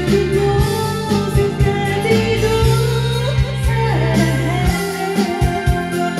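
Karaoke backing track of a Korean ballad playing through the room's speakers: guitar and keyboard over a steady beat, with a voice singing the melody.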